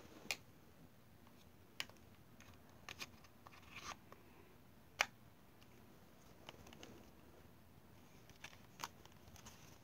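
A handful of light clicks and taps from a hard plastic object being handled close to the microphone, spread irregularly through, the sharpest about halfway, over faint room noise.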